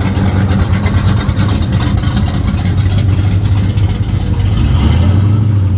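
AMC AMX's engine running close by: a loud, steady, deep exhaust note that swells slightly near the end, a lovely sound.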